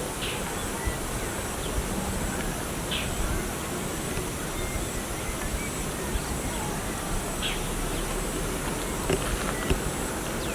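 Farmyard ambience: a steady hiss with thin high-pitched insect-like tones, and a few short bird chirps spaced a couple of seconds apart.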